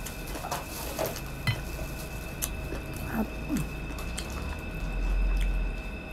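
Close-up eating sounds of crispy pata, a deep-fried pork leg: scattered wet chewing clicks and squishes, with fingers picking meat off a plate. A dull low rumble comes about five seconds in.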